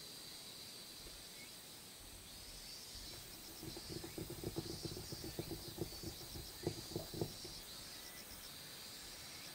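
Fingers and a charcoal stick rubbing and stroking a sketchbook page, a run of quick strokes through the middle with the loudest near the end of the run. A faint, steady high insect trill is heard behind it.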